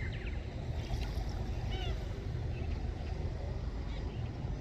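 Fishing boat's engine running with a steady low drone, with a few faint gull calls over it in the first two seconds.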